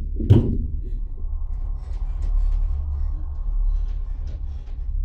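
A steady low rumbling drone, with a single sharp knock about a third of a second in.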